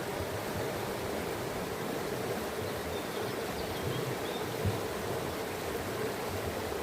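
Flowing water running steadily, with a faint high bird chirp a little past the middle.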